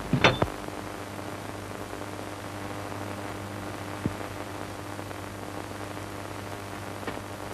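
Hiss and steady low hum of an old 1930s film soundtrack, with a short cluster of knocks just after the start and one faint click about four seconds in.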